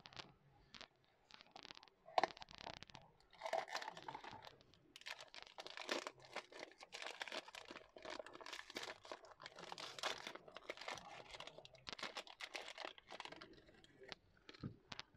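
Blind box being opened by hand. A few clicks and a short rip of the cardboard box come first, then a foil packet crinkles and tears for most of the rest as a vinyl figure is pulled out.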